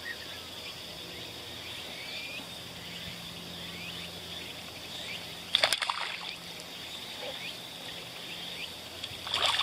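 Outdoor background with a steady high-pitched hum and many faint chirps, broken by a short sharp clatter about halfway through and another near the end.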